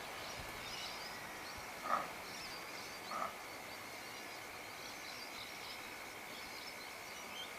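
Quiet outdoor ambience: a steady high-pitched drone with faint scattered chirps, and two short calls about two and three seconds in.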